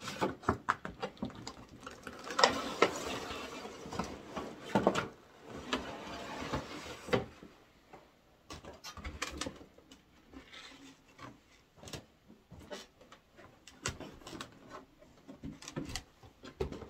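Cardboard box and clear plastic blister tray being handled: rustling, scraping and scattered clicks and knocks, busiest in the first seven seconds, then sparser taps.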